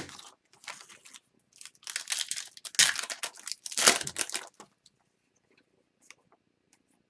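Foil trading-card pack wrapper crinkling and tearing as it is handled and torn open, in irregular rustles that are loudest about three and four seconds in and then stop.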